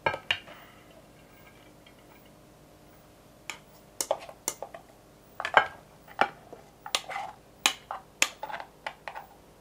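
A spoon knocking and scraping against the nonstick metal inner pot of a mini rice cooker as cooked brown rice is scooped out. There are two knocks at the start, then an irregular run of sharp taps and scrapes through the second half.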